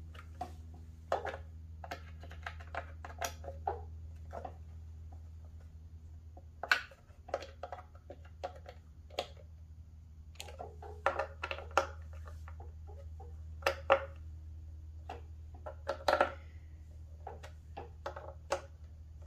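Irregular small clicks and knocks of a hand wrench turning and seating the screws of a Onewheel Pint's controller cover, snugging them down by hand, over a steady low hum.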